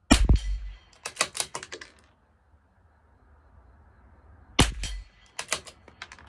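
CZ 457 LRP .22 LR bolt-action rifle firing two shots about four and a half seconds apart. After each shot comes a quick run of sharp clicks as the bolt is worked to eject the case and chamber the next round.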